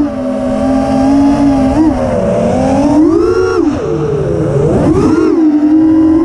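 Brushless motors of a 5-inch FPV racing quad (T-motor Velox 2207.5 2550kv on 4S, Gemfan Hurricane 5143 props) whining, the pitch swelling and dropping with the throttle: steady at first, then climbing sharply about three seconds in and again about five seconds in. Wind rushes over the onboard camera's microphone underneath.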